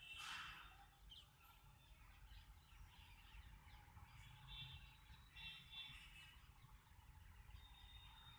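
Faint bird calls in the background over near silence: a few short high chirps through the middle, and a thin held high note near the end.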